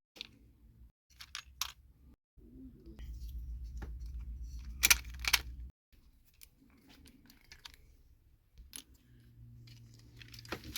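Small plastic and metal parts of a toy train engine clicking and clinking as they are handled and screwed together, with a stretch of low rumbling handling noise from about two and a half to five and a half seconds in.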